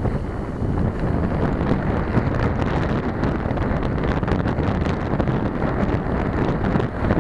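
Wind buffeting the microphone of a camera on a moving bicycle, with many short clicks and rattles from the bike running over a rough gravel towpath.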